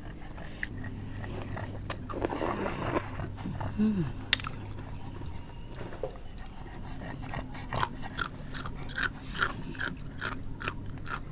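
People chewing and biting food at close range, with a run of crisp crunches about two or three a second in the second half.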